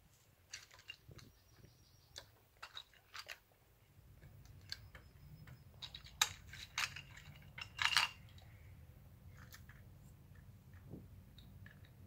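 Small plastic toy groceries and a toy shopping cart being handled and packed: a scatter of light clicks and small clatters, busiest and loudest about six to eight seconds in.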